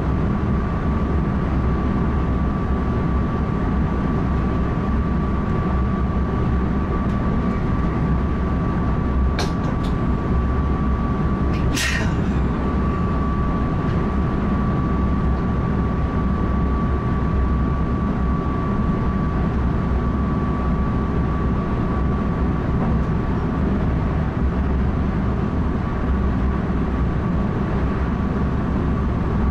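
Cab-interior running noise of an NS ICM (Koploper) electric multiple unit travelling at speed: a steady rumble of wheels on rail with a thin, steady high whine. A couple of short sharp clicks come about a third of the way in.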